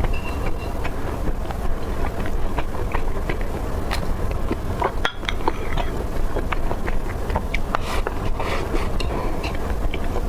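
A person biting and chewing crunchy food, with many short sharp crunches scattered irregularly. A steady low rumble runs underneath.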